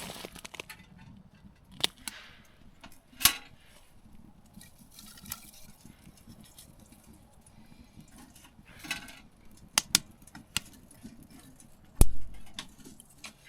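Scattered light clinks and knocks with brief rustling, typical of small hard objects being handled, and one heavier thump about twelve seconds in.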